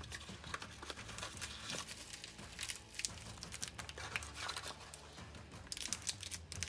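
Packaging crinkling and rustling in the hands as a collectible coin is unwrapped, with scattered small clicks and taps that come in louder clusters midway and near the end.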